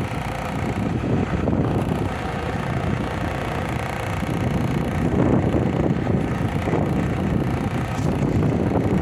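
Lada Niva Travel on the move: road and running noise with an extraneous noise coming from the front bumper, a fault on a new car.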